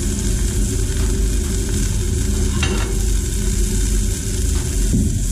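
White-fish strips searing in hot oil in a frying pan on medium-high heat, sizzling steadily, with a brief scrape about two and a half seconds in.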